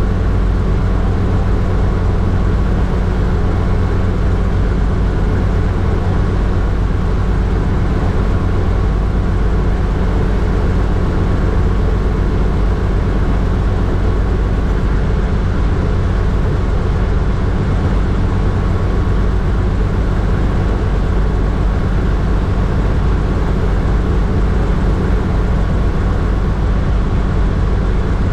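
Hughes 269 light piston helicopter in cruise flight, heard from inside its cockpit: the engine and rotors make a loud, steady drone, heaviest in the low end.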